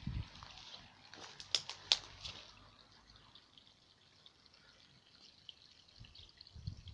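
Faint trickling and dripping of a small, slow-flowing pump-fed garden stream, with two sharp clicks about one and a half and two seconds in. Low thumps at the start and near the end.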